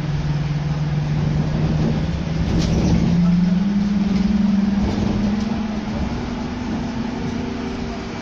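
Škoda 28Tr trolleybus's electric traction drive heard from inside the cabin as it gathers speed: a steady hum that climbs in pitch in steps, over the rumble of the body and tyres on the road.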